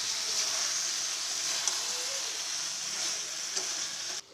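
Chicken curry with potatoes sizzling in a metal kadai while a spatula stirs it, with a few faint scrapes. The masala is at the sautéing (kosha) stage with a little water added. The sizzle cuts off suddenly near the end.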